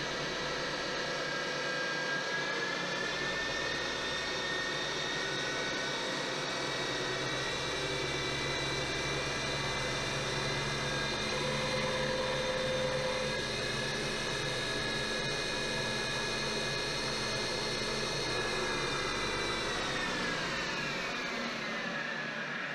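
Ex-Cell-O 602 ram turret knee mill running: the spindle motor and drive give a steady whine that steps up slightly in pitch a couple of seconds in and slides down in pitch near the end. The three-phase motor is running on power made from single-phase 240 V by a static phase converter.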